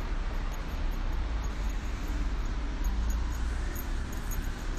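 Steady low rumble with rustling handling noise from a phone microphone being carried.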